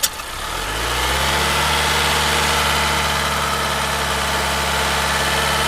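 A sharp click at the very start, then a car engine idling steadily, building up over the first second and then holding even.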